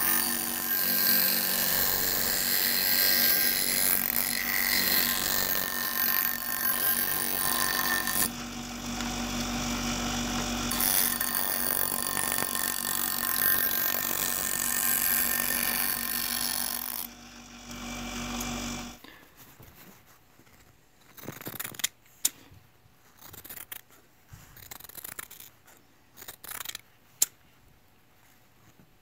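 Delta bench grinder running while a kitchen-scissor blade is ground against its stone wheel, putting a rough serrated edge on the blade, with a steady motor hum under the grinding hiss; the grinding breaks off briefly partway through. The grinder stops about two-thirds of the way in, and the rest is scattered short snips and clicks of the reworked scissors cutting through Kevlar cloth.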